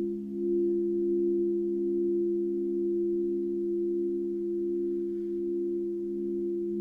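Singing bowls ringing together in a sustained low chord of three steady tones, one of them wavering in a slow pulse.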